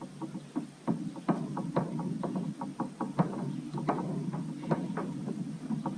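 Light, irregular clicks and knocks, several a second, over a steady low rumble: gear being handled aboard a plastic fishing kayak.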